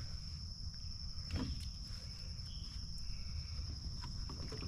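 Insects droning steadily on one high tone over a low rumble, with a few light knocks and clicks, the clearest a little over a second in.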